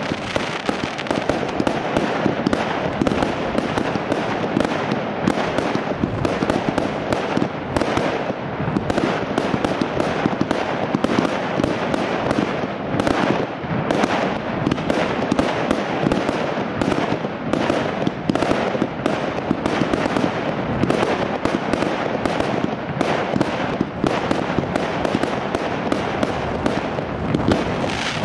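Professional display fireworks firing in a fast, continuous barrage: aerial shells and low-fired mines launching and bursting, dozens of sharp bangs overlapping with no pause.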